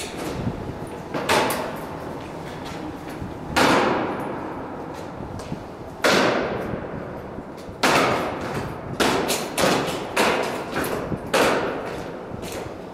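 Honour guard soldiers' boots striking a stone floor in slow ceremonial marching step, each strike echoing in a large hall. A few widely spaced strikes come first, then a quicker run of steps from about eight seconds in.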